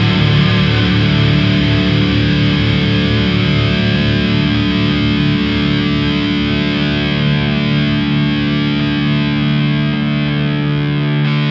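Old-school death metal with heavily distorted electric guitars: a sustained chord rings over a fast, pulsing low end. The low pulsing drops out about eleven seconds in, leaving the chord ringing on its own.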